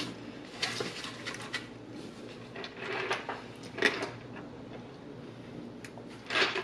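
Eating sounds: a utensil clicking and scraping against a dish of salad, in scattered separate taps at irregular intervals.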